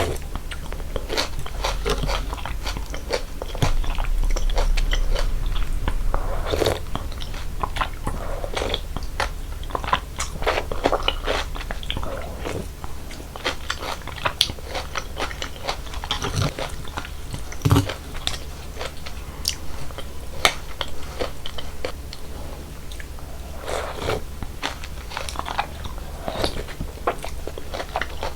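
Close-miked eating sounds of icy cold water noodles (mul-naengmyeon): steady chewing with frequent small crunches and clicks.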